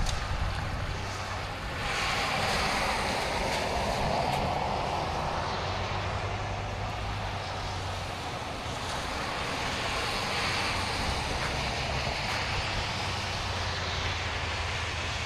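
A vehicle running: a steady low engine drone under a constant rush of road and wind noise, swelling slightly about two seconds in.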